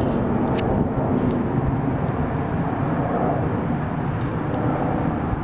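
Twin-engine jet airliner passing overhead: a steady rumble of jet engine noise.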